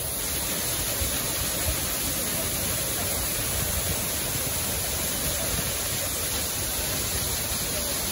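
Waterfall pouring down a rock face and splashing onto boulders below: a steady rush of falling water.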